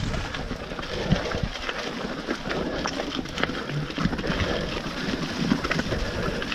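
Mountain bike rolling over rough, wet rocky ground: tyres crunching on stones and gravel, with irregular clicks and knocks from the bike rattling.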